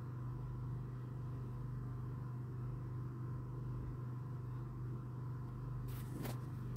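Steady low hum with a faint high tone over background hiss, with two short clicks about six seconds in.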